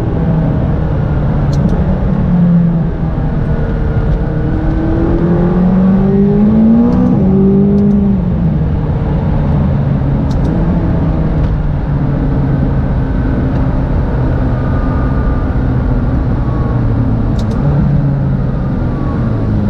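McLaren 570GT's twin-turbo V8 under way, heard from inside the cabin: the engine note climbs and drops back twice in the first eight seconds, then settles to a steadier, lower drone over constant road noise.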